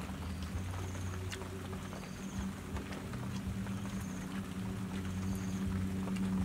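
A steady low motor hum that grows louder toward the end, with a short high chirp about once a second and scattered light clicks.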